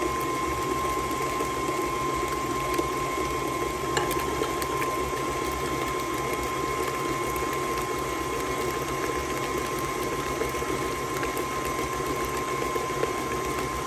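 KitchenAid stand mixer running steadily at a constant speed, its coated flat beater turning through eggs and creamed butter and sugar, with an even motor whine.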